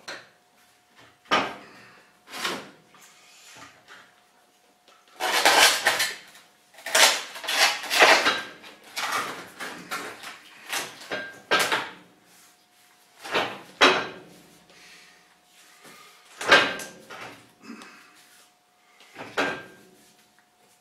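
A heavy rock being shifted and turned by hand in the carriage of a 30-inch Covington rock saw: irregular knocks, clunks and scrapes of stone against the saw's metal parts, busiest from about five to twelve seconds in.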